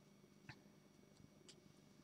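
Near silence with two faint taps of small paper cards being handled, about half a second in and again about a second later.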